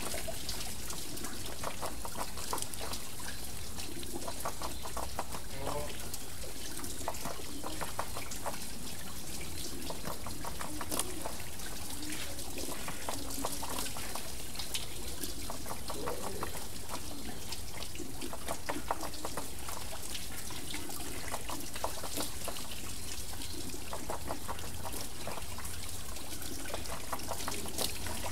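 Water wheel turning, its water steadily pouring and trickling, with many small splashes and drips throughout.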